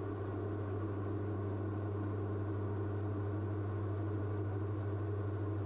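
Steady drone of a Diamond DA42 twin's engines and propellers in cruise, a low hum with a few even tones that holds unchanged.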